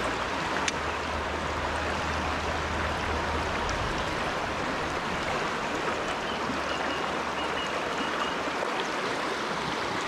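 Steady rushing of a fast-flowing upland river, an even hiss of water over stones, with a low rumble underneath during the first few seconds.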